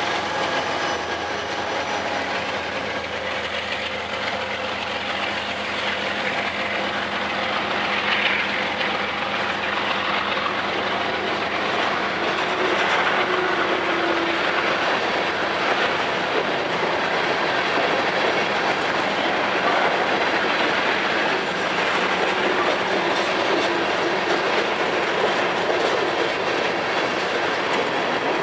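Freight train cars rolling past, their wheels clacking over the rail joints in a steady run, growing a little louder partway through.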